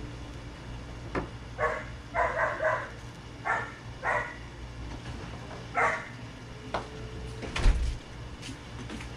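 A dog barking, about seven short barks with three in quick succession around two seconds in, over a steady low hum. A loud thump follows about seven and a half seconds in.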